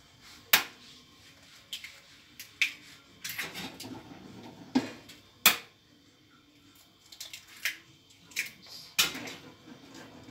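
Eggs being tapped and cracked on the rim of a stainless steel mixing bowl: a series of sharp knocks and clinks, with handling noise between them.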